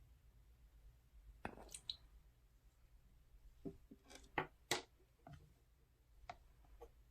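Crunchy slime made from clear glue being squeezed and kneaded by hand, giving scattered soft crackling clicks and small popping air bubbles. The louder pops come in a cluster about one and a half seconds in and again around four to five seconds.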